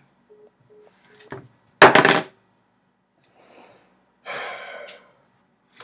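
Three faint short beeps from a mobile phone, then a man's loud exasperated exhale about two seconds in, and a long sigh into his hands near the end.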